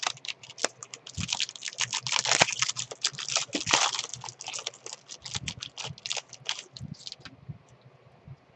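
Fast, irregular clicking of typing on a computer keyboard. The run of key clicks is busiest for a couple of seconds in the middle and dies down to a few stray taps about a second before the end.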